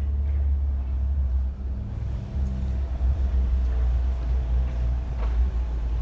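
A motor vehicle's engine running close by: a steady low rumble with a faint hum over it, dipping briefly about a second and a half and two seconds in.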